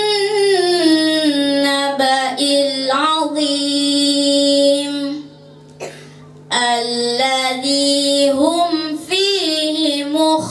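A boy reciting the Quran in a melodic chant into a handheld microphone, drawing out long held, wavering notes. He breaks off for a breath about five seconds in and resumes about a second and a half later.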